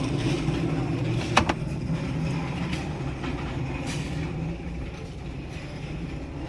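Steady low rumble with a few sharp clicks, the loudest about a second and a half in.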